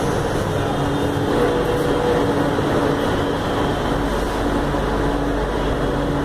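Steady running noise of a Chennai Metro train heard inside the passenger car, with a faint hum that comes and goes.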